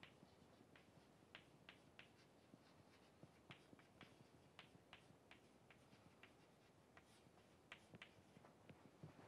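Faint chalk tapping and scratching on a blackboard as words are written by hand: a string of short ticks, two or three a second.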